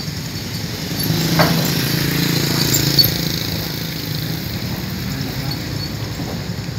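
Motorcycle engines running at low speed close by, louder about a second in as a motorcycle passes, then easing off.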